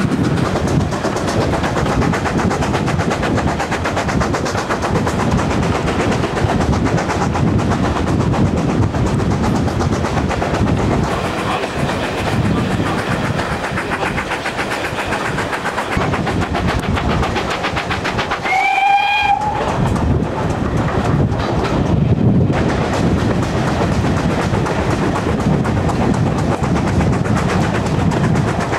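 Heritage passenger train running along the line, a steady rumble and clatter of coach wheels on the rails heard from a carriage window. About two-thirds of the way through, the steam locomotive gives one short whistle, about a second long, rising slightly at its end.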